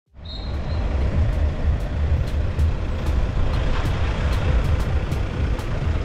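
Wind buffeting the microphone outdoors: an uneven low rumble over a steady hiss, with faint sharp ticks about twice a second.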